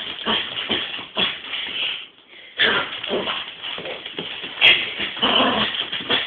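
A dog whimpering and yipping in irregular bursts, with a short pause about two seconds in.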